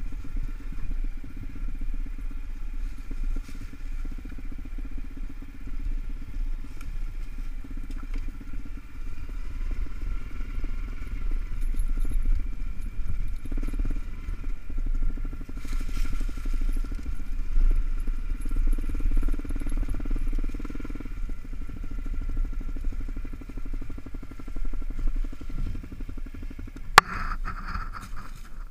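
Honda CRF250L's single-cylinder four-stroke engine running steadily as the dirt bike rides along a trail. A single sharp click sounds near the end.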